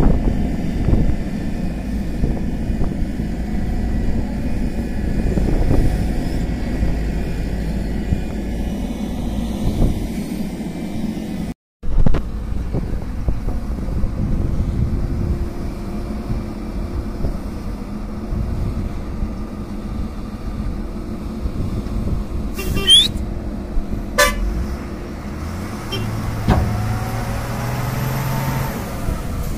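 Diesel engines of a Tata Hitachi hydraulic excavator and a tipper truck running steadily while soil is loaded, with a few sharp knocks about two thirds of the way in. The sound cuts out for an instant a little before the middle.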